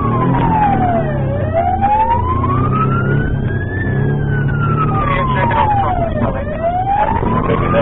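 Police car siren on a slow wail, its pitch sweeping smoothly down and up, each sweep lasting about two and a half seconds, over the steady drone of the car's engine.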